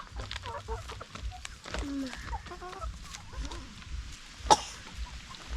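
Chickens clucking softly in short, scattered calls while pecking at food, with one sharp tap about four and a half seconds in.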